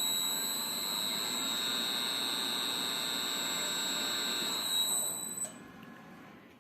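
Milling machine's vertical-axis drive motor running: a steady high whine over a mechanical rumble, winding down and stopping about five seconds in.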